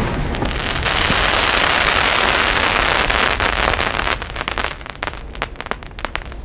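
100 mm gold crackling willow firework shell crackling densely right after its burst. After about four seconds it thins to scattered single cracks.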